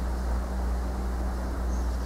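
Steady low mechanical hum under an even rushing haze, with a faint short high chirp near the end.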